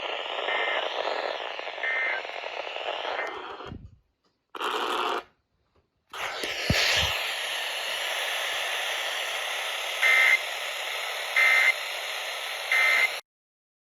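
Weather-radio receiver hiss carrying EAS end-of-message data bursts: three faint short chirps in the first few seconds, then a dropout, then three louder short bursts about a second and a half apart near the end, after which the audio cuts off.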